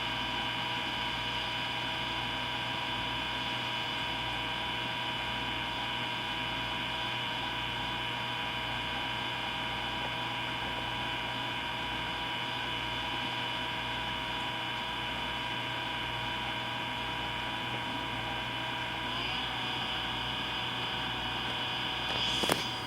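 EcoTech Marine Vortech MP60 aquarium propeller pump running on constant mode: a steady whine of several tones over a low hum. A few seconds before the end the pitch steps up slightly, which is the kind of variance in its noise that the pump's owner reports as a fault on constant mode. A sharp click comes near the end.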